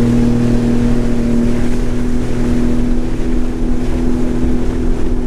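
Sea-Doo jet ski engine running steadily at cruising speed, with a steady low drone, over the rush of wind and water as it crosses open water.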